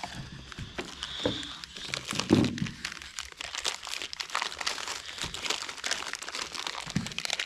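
Packaging crinkling and rustling as tools are pulled out of a toolkit box and unwrapped, with many irregular crackles.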